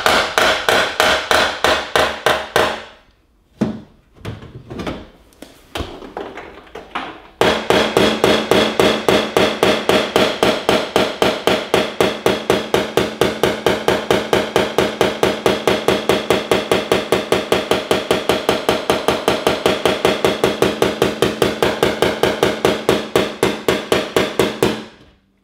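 Polished body hammer tapping quickly and evenly on a steel car fender, with a dolly pressed against the back of the panel, each strike ringing metallically: hammer-on-dolly work knocking a dent's crown down into the body line. The tapping pauses from about three to seven seconds in, with only a few scattered taps, then runs on at about five strikes a second until just before the end.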